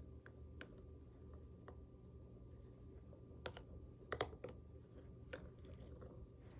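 A small terrier chewing a hard red rubber ball toy, its teeth clicking and tapping on the toy in scattered clicks, with a loudest cluster of taps about four seconds in.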